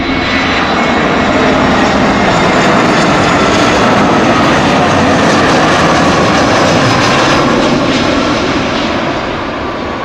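Jet engines of an Airbus A320-family airliner on final approach and landing: a loud, steady rush of engine noise with a faint high whine, easing off slightly over the last couple of seconds as it comes down onto the runway.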